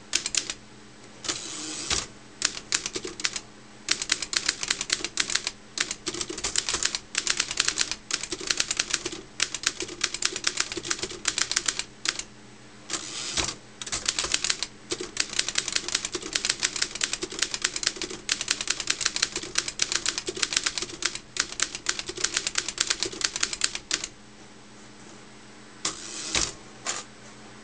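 Wide-carriage manual typewriter typed on in fast runs of sharp keystroke clacks, broken by short pauses.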